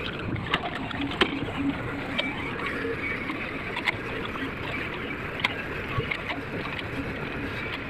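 Excavator engine running steadily, with sharp knocks every second or two.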